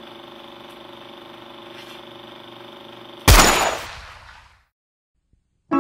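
Intro sound effects: a steady hum with a faint fine flutter, then about three seconds in a sudden loud hit that fades out over about a second, followed by silence.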